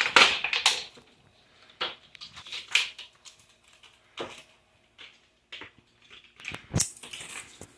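Handling of a plastic action figure's packaging and parts: a burst of crinkling at the start, then scattered clicks and rustles, with one sharp knock near the end.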